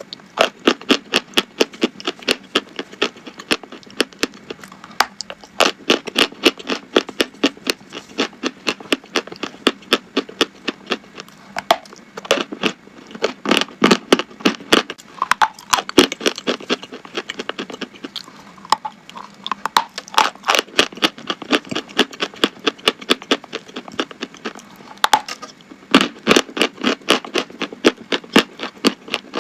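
Someone chewing crunchy chalk close to the microphone: rapid sharp crunches, several a second, in runs with brief pauses between them.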